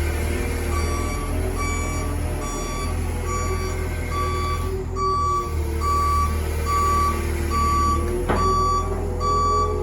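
Heavy-equipment travel or backup alarm beeping steadily, a little over one beep a second, over the low rumble of a diesel engine. A single sharp knock sounds about eight seconds in.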